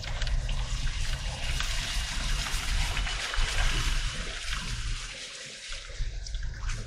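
Dacia Duster SUV driving through water on an off-road track: water rushing and splashing under the car over a low engine rumble, easing off about five seconds in.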